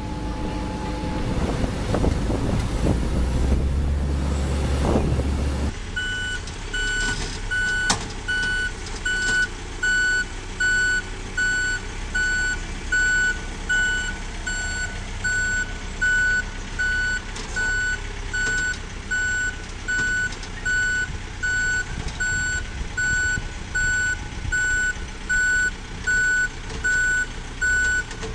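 Heavy vehicle's reversing alarm beeping steadily about once a second over the low running of its engine. For the first six seconds, before an abrupt cut, there is louder engine and rumbling noise instead.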